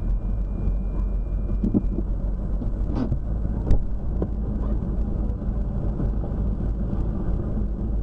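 Steady low rumble of a car's engine and cabin, picked up by a dashcam microphone inside the car, with a couple of faint knocks about three seconds in.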